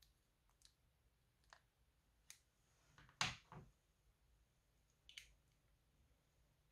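Quiet handling sounds: small sharp clicks as scissors snip the tip off a plastic piping bag, then a louder double knock a little after three seconds in, and one more faint click near the end.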